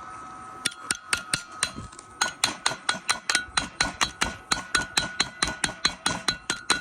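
Chipping hammer striking the slag off a fresh weld bead on a steel hydraulic cylinder. The rapid metallic taps come about five a second, each with a ringing note from the steel, and start just under a second in.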